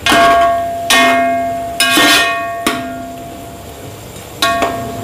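Metal slotted spoon knocking against a metal cooking pot while stirring a chicken curry: about six clanks, each leaving the pot ringing with a clear bell-like tone that fades slowly.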